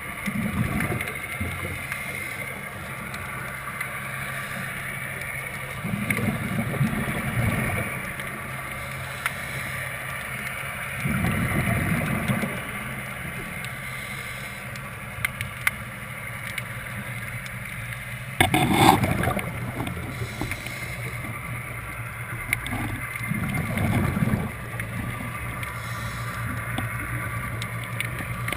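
Underwater sound of a scuba diver breathing on a regulator, with exhaled bubbles in bursts about every five seconds, over a steady motor hum carried through the water.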